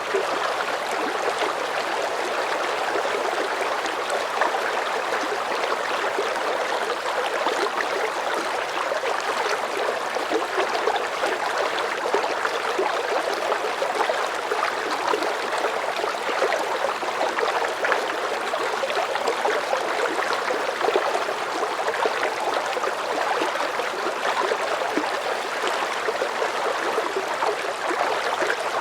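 River current of moderate strength flowing steadily over rocks, a constant rushing of water flecked with small splashes and gurgles.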